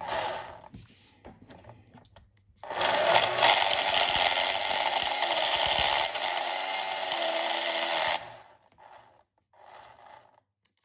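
Slot car's electric motor spinning the rear axle at speed while a tool is held against the spinning plastic wheel, shaving it true to remove the dimples that make the car growl. After a brief burst at the start, the loud steady whirr of motor and cutting starts about three seconds in and stops suddenly a little past the middle.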